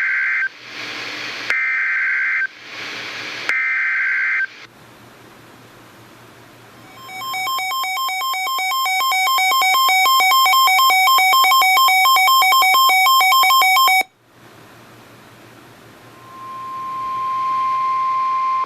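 NOAA Weather Radio Emergency Alert System tones on a weather radio. First the end of the SAME digital header: three harsh one-second data bursts about two seconds apart. Over radio hiss, a rapidly pulsing electronic alarm beep swells for about seven seconds and cuts off suddenly, and near the end a steady 1050 Hz warning alarm tone begins and grows louder.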